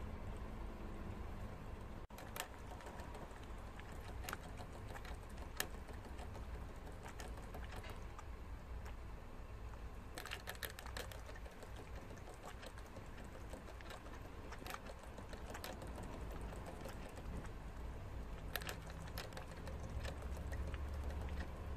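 Prairie dog licking at the metal ball-valve sipper tube of a cage water bottle, making irregular clicks, in denser runs about halfway through and near the end.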